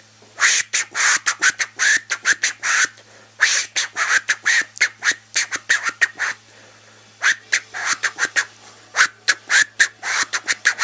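Beatboxed vocal record-scratch sounds: quick squeaky chirps made by sucking air in through the lips pressed against a cupped hand, chopped into beats with the tongue. They come in three fast runs with short pauses between.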